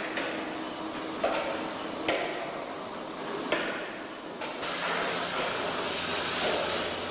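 Milking parlour equipment: a steady hiss broken by a few sharp metallic clanks, irregularly spaced. About two-thirds of the way in, the hiss turns louder and fuller, with a low hum beneath it.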